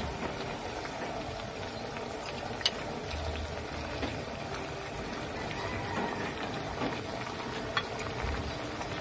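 Banana slices deep-frying in oil and brown sugar in a wok: a steady sizzle and bubbling of the hot oil. Two short clicks stand out, one about a third of the way in and a fainter one near the end.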